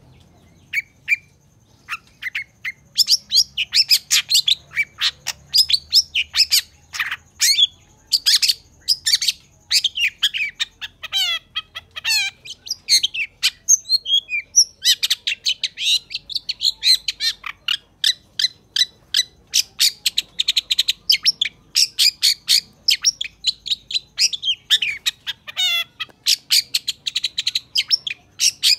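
Long-tailed shrike singing a fast, chattering song of short sharp notes and quick trills, with brief lulls near the start and about halfway through.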